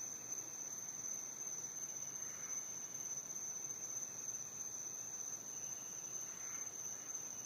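Steady high-pitched chorus of crickets at night, with two faint calls in the background about two and six and a half seconds in.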